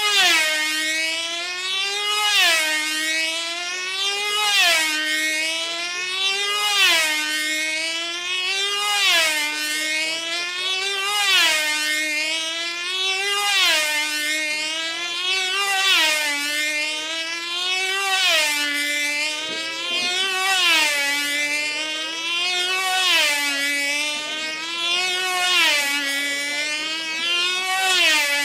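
Open Rat control-line racing model's two-stroke engine screaming at full speed as the plane circles, the pitch rising and falling and the sound swelling once each lap, about every two and a quarter seconds.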